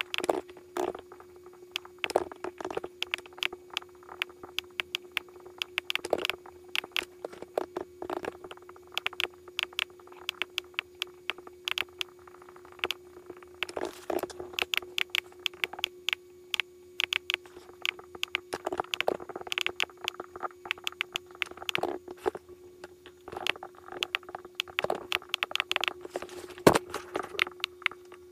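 Rapid clusters of clicking from a computer keyboard and mouse, over a steady electrical hum.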